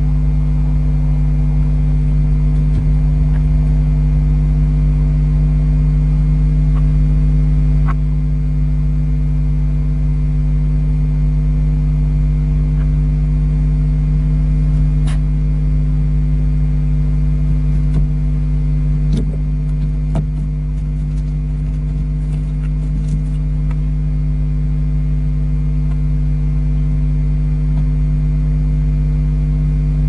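Steady electrical hum from the nest-box camera's audio line, a low drone with a constant buzz above it, with a few faint clicks from movement in the box.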